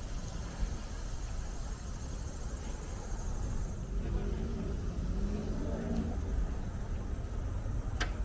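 Steady low outdoor rumble, with faint voices partway through.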